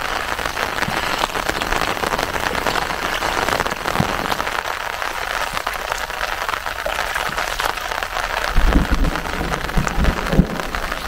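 Steady rain falling on open water. A few low thumps come near the end.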